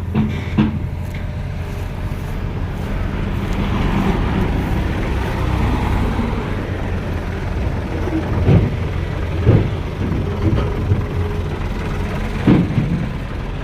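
Heavy engine running steadily, with a few sharp knocks or clanks near the end.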